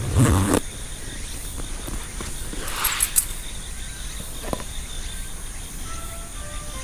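Insects chirping steadily with an even pulse. A short loud rustling bump comes just after the start, and a brief scraping rustle with a few clicks about three seconds in. Faint music notes begin near the end.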